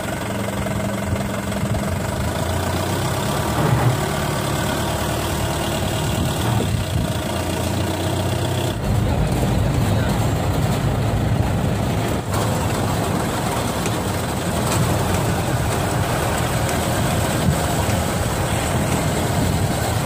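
An SUV's engine running steadily as it drives over muddy, grassy ground, with a shift in the sound about nine seconds in.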